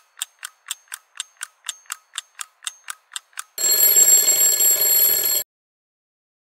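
Twin-bell alarm clock ticking about four times a second, then its bell ringing loudly for nearly two seconds and cutting off suddenly.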